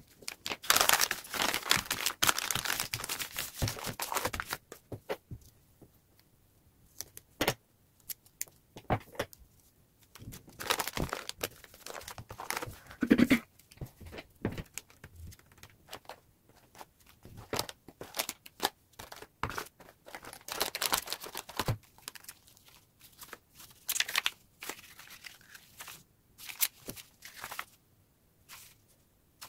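Brown kraft paper crinkling and rustling in irregular bursts as it is folded and creased around a book, with quiet pauses between bouts of handling.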